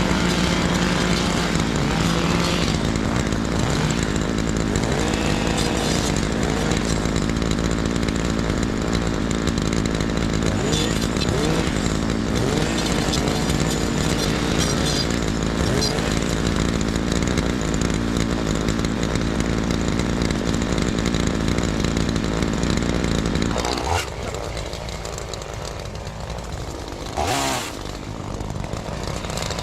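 Chainsaw running hard at high revs, then dropping back to a quieter idle about three-quarters of the way through, with a brief rev near the end.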